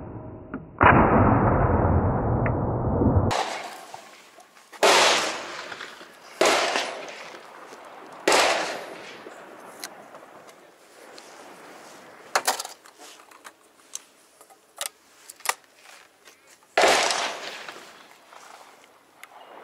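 Shots from a Webley & Scott 2020K side-by-side double-barrelled shotgun, each a sharp blast with a short decaying tail, several seconds apart. Between the shots come small metallic clicks as the gun is broken open and reloaded.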